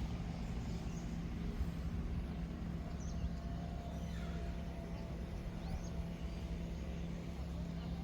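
Car driving at a steady speed, heard from inside the cabin: an even low engine and road hum.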